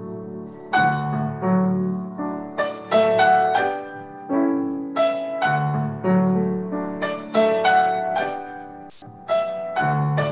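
Upright piano played solo: a slow, lyrical melody over chords, each note struck and left to ring, heard over a video call. A brief gap with a click breaks the sound about nine seconds in.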